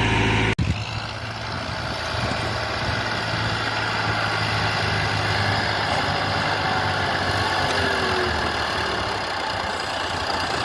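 Heavy diesel engine running steadily. About half a second in, the sound changes abruptly to a noisier engine sound.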